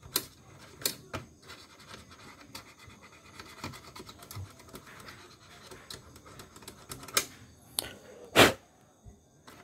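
Small screwdriver scraping and picking at hardened dirt in an embroidery machine's metal mechanism: faint scratching and ticking, with a few sharper clicks near the end and one loud knock about eight seconds in.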